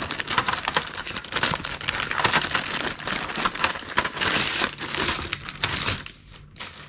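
Clear plastic bag crinkling and rustling as a board game player board is worked out of it. The crackling stops about six seconds in.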